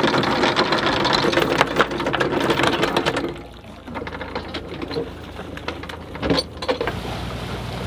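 Anchor chain clattering aboard as the anchor is hauled up: a dense, loud rattle that stops abruptly after about three seconds. After that it is quieter, with a brief splash about six seconds in.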